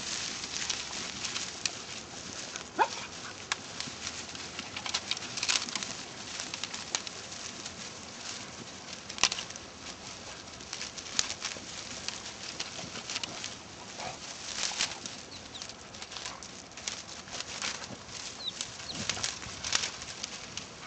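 Dry brambles and brush crackling and twigs snapping as hunting dogs push through the cover, with a brief rising yip about three seconds in.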